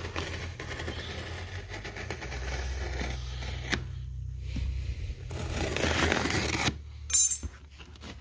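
Utility knife blade slicing and scraping along packing tape on a cardboard box, in irregular scratchy strokes with small clicks and one sharper, louder scrape about seven seconds in. A steady low hum runs underneath.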